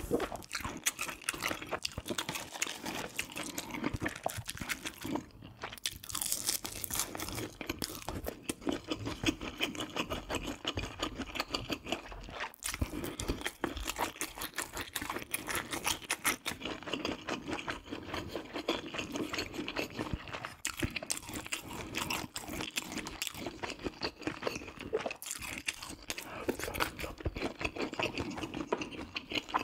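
A person eating close to the microphone: continuous chewing with crunches and wet mouth clicks.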